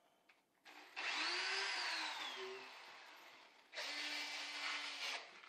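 Power drill running into wooden helix roadbed in two bursts: a longer run of about three seconds whose pitch rises and then falls away, then a shorter steady run of about a second and a half.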